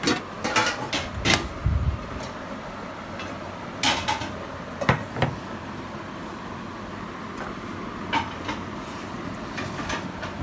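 Clinks and knocks of a spoon and an aluminium pizza pan against a steel counter as pizza sauce is spread over a dough base. They come in a few scattered clusters over a steady background hum.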